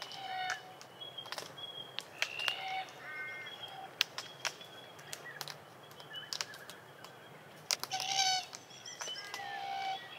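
Glossy black cockatoos feeding on sheoak cones: frequent sharp cracks and snaps as the cones are crunched in their bills, with short soft calls now and then and a busier run of calls about eight seconds in.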